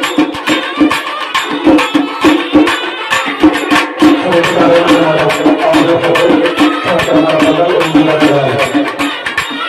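Kerala temple kavadi band: nadaswaram-style reed pipes and long brass horns playing a loud, wavering melody over fast drumming. A lower held tone joins about four seconds in and drops out near the end.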